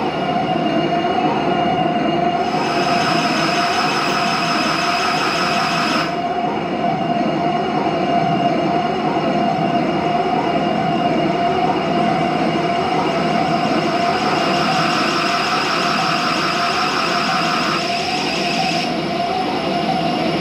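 Electronic drone score: a steady sustained tone over a dense noisy texture, with higher hissing layers that cut in and out abruptly, about two seconds in, at six seconds and again near the end.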